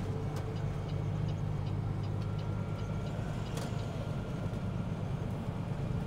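Peterbilt 389's Caterpillar 6NZ straight-six diesel heard from inside the cab: a steady low drone while the truck drives along, with faint regular ticking above it.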